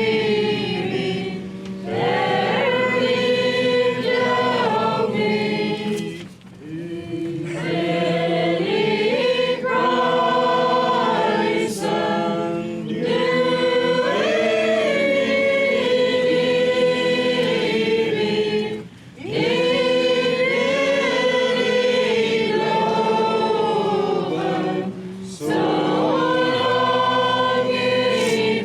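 A choir singing a hymn in long held chords, with short breaks between phrases about six, nineteen and twenty-five seconds in.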